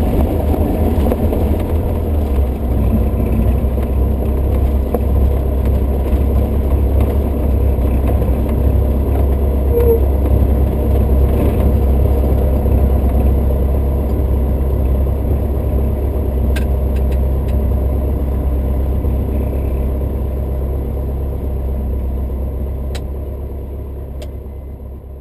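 Jabiru J160's four-cylinder air-cooled engine and propeller running at low taxi power, heard inside the cabin as a steady low drone. It fades out near the end.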